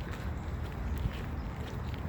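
Footsteps of a person walking along a path, over a steady low rumble.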